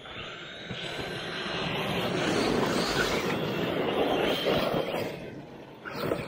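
Electric brushless RC monster trucks driving on a dirt track: motor whine and tyre noise that swell to a close pass from about two to five seconds in, dip, then build again near the end.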